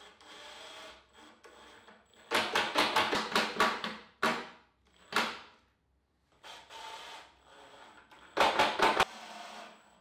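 Makita DTD154 cordless impact driver driving large screws through the steel plate of a swivel caster into plywood, in bursts of rapid hammering clicks: a long burst about two seconds in, two short ones, and another near the end. Quieter handling and rubbing sounds fall between the bursts.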